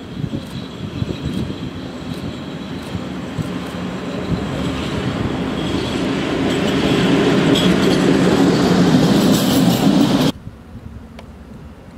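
ET22 six-axle electric locomotive running light past on the nearby track, its rail and wheel noise growing steadily louder as it comes close. The sound cuts off abruptly about ten seconds in.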